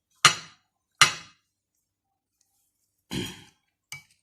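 A spoon knocking sharply against the rim of a kitchen container twice, each knock ringing briefly. A softer clatter follows about three seconds in, then a small click near the end.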